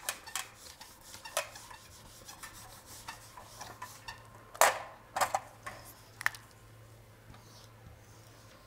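Whiteboard eraser wiping the board, then a marker pen drawing lines on the whiteboard: a scatter of short rubbing strokes, the longest and loudest about halfway through.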